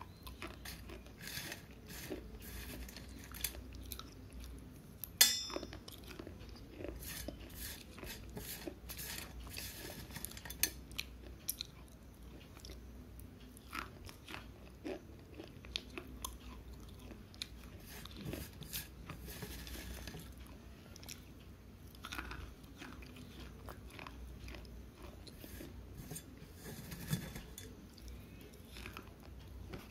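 Slate pencil being bitten and chewed right at a small microphone held to the mouth: a continuous run of crunches and crackles, the loudest about five seconds in.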